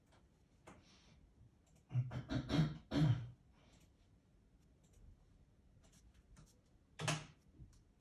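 Soft pastel stick scraping and rubbing across textured pastel paper: a quick run of strokes about two seconds in, and one more about seven seconds in, with faint ticks between.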